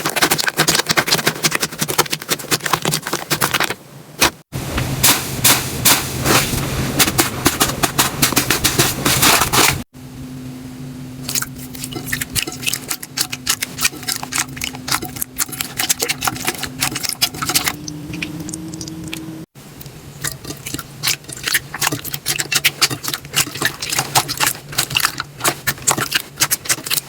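Slime being squeezed, pressed and poked, giving rapid crackling, clicking and popping, in several short takes spliced together. One softer take has a steady low hum under it that steps up in pitch near its end.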